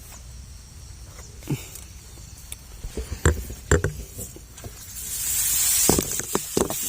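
Rustling of rice plants and scattered footsteps as someone walks through a rice paddy, with a louder rustle swelling up about two-thirds of the way in.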